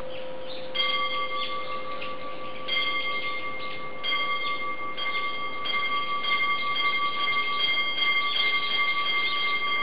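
Background music of sustained bell-like chime tones: a low tone fades out and a higher held tone with ringing overtones enters about a second in, re-sounded softly every second or two.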